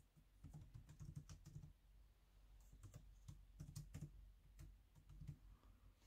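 Faint typing on a laptop keyboard: quick runs of key taps, one burst in the first two seconds and another from about halfway until shortly before the end.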